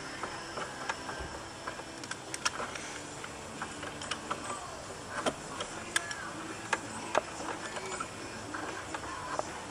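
Razor blade cutting and scraping excess strands off dry fiberglass cloth: irregular sharp clicks and snaps, a few seconds apart, over a soft scraping hiss.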